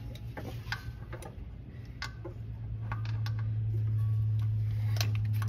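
Ratchet wrench clicking in short, irregular runs while working the A/C compressor's mounting bolts, over a steady low hum that grows louder about halfway through.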